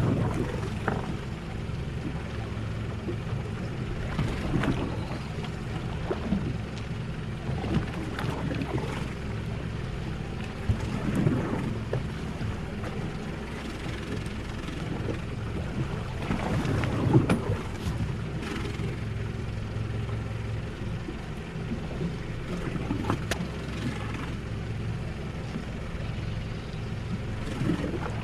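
Boat's diesel engine idling steadily under wind on the microphone and sea noise, with a few scattered knocks.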